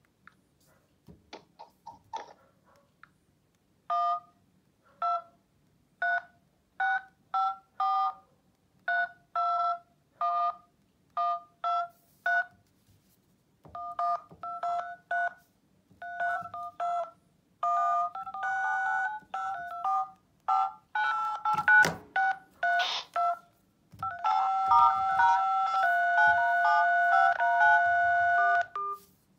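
Touch-tone (DTMF) keypad tones from mobile phones' in-call dial pads: a string of short two-tone beeps, one for each key pressed. A sharp knock sounds about two-thirds of the way through. Near the end, tones are held longer and overlap for several seconds.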